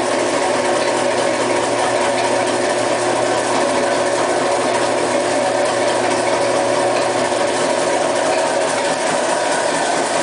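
Biro EMG-32 commercial meat mixer-grinder running with both its mixing paddles and grinding auger turning: a steady electric-motor and gear drone with several constant tones and no change in speed.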